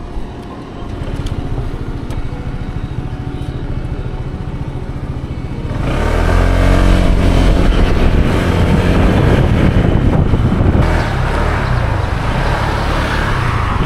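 Honda ADV 160 scooter's single-cylinder engine running while riding along, with wind noise on the microphone. About six seconds in, the sound grows louder and rougher and stays that way.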